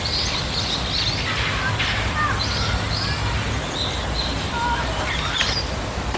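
Scattered birds chirping over steady outdoor background ambience.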